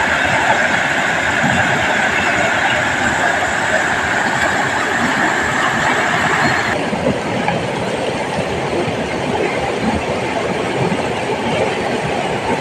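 Rushing water of a swollen river pouring over rock rapids: a steady, loud rush that turns duller about seven seconds in.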